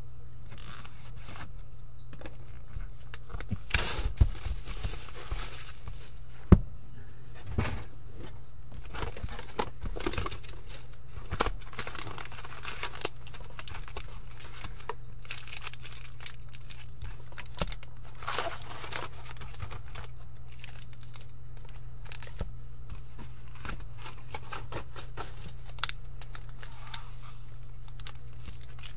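Upper Deck hockey card box and its foil packs being torn open and handled: irregular crinkling and tearing in short bursts, with a sharp click about six and a half seconds in, over a steady low hum.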